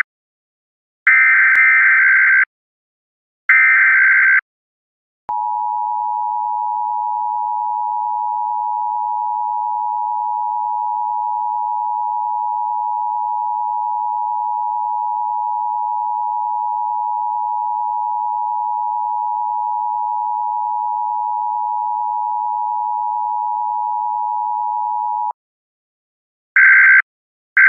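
A loud electronic tone made of two close pitches, held steady for about twenty seconds like a phone dial tone. Before it come three harsh buzzing blasts of about a second and a half each, and short blasts of the same kind start again near the end.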